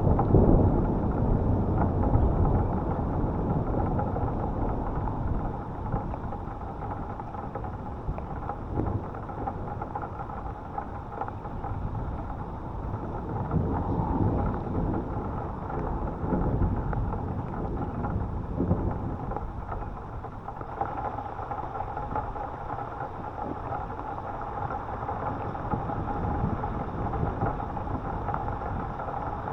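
Thunder rumbling and fading away over steady rain, with a few fainter rolls of thunder later on.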